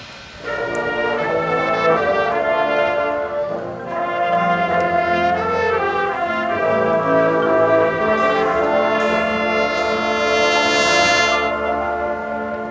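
Marching band brass section playing held chords. It comes in about half a second in and grows fuller and brighter near the end before easing off.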